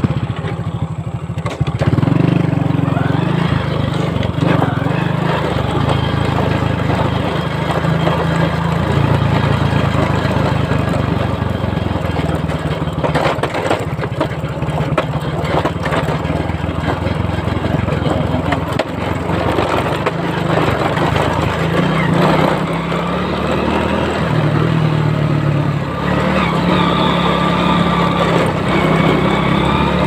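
Small motorcycle engine running continuously while riding along a dirt track, its note shifting a little with speed.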